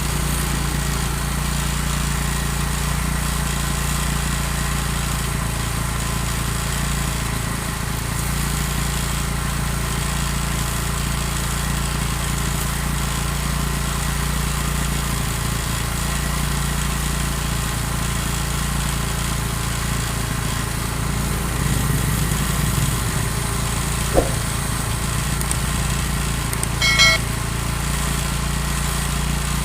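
Honda Shine motorcycle engine running steadily. A single sharp click comes about three quarters of the way through, and a brief high squeak a few seconds later.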